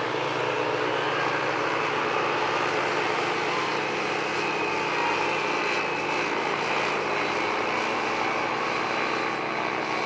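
Propeller engine of a powered hang glider (ultralight trike) droning steadily as it flies overhead.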